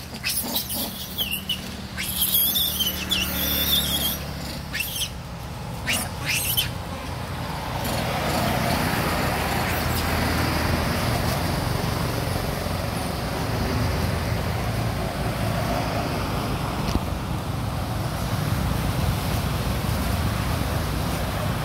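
Outdoor ambience around macaques in the trees: in the first few seconds, sharp snaps and short high-pitched calls. After that, a steady wash of noise with road traffic.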